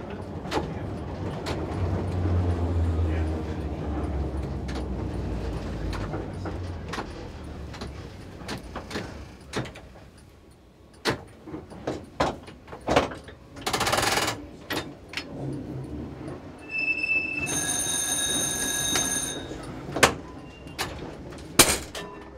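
Vintage tram running along the track, heard from the cab: a low motor hum and rumble with repeated clicks and knocks from the wheels and fittings. Another tram passes on the next track with a brief rush of noise about two-thirds of the way through, and a high metallic ringing sounds for about two seconds shortly after.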